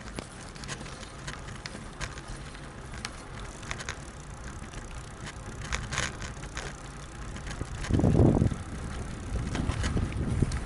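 Soviet KhVZ Start-Shosse road bicycle rolling along asphalt: a steady tyre rumble with scattered clicks and rattles from the bike. About eight seconds in comes a louder low rush of wind buffeting the microphone.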